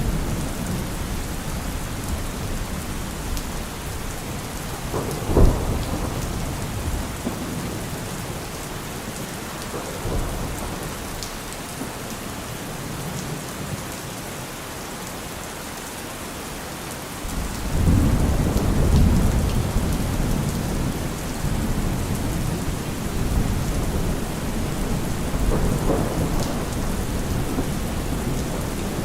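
Steady rain falling, with thunder rolling underneath: a sharp thunderclap about five seconds in, and a long low rumble that swells up about eighteen seconds in and slowly fades.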